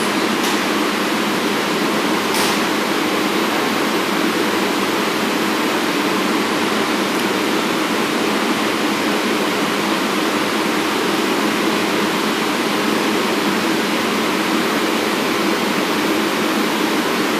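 Steady, even rushing noise of a stationary R188 subway car's air-conditioning and the underground station's ventilation, with a couple of faint clicks in the first few seconds.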